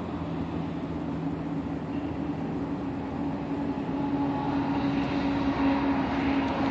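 Diesel locomotive engines running as a train approaches: a steady low drone that slowly grows louder.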